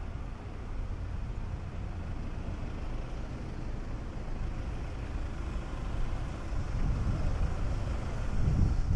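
Road traffic on a city street: a steady low rumble of engines that grows louder in the last couple of seconds.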